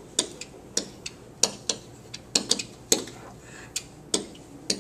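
A pen tip tapping and clicking against the hard surface of an interactive whiteboard during writing: a dozen or so sharp, irregular ticks, a few a second.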